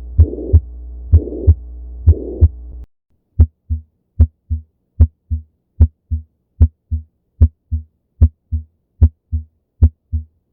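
Heart sounds. For about the first three seconds, lub-dub beats carry a noisy murmur over the first and second sounds, the holosystolic murmur of a ventricular septal defect, under a steady hum. Then the sound switches to normal heart sounds: clean lub-dub pairs, a little over one a second, with silence between them.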